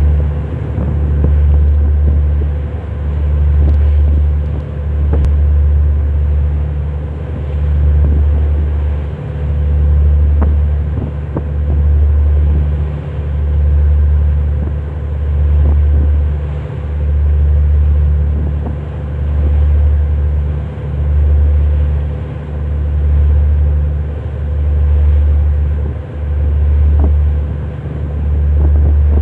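Low boat engine rumble that swells and fades in an even beat about every two seconds, with a faint steady hum above it.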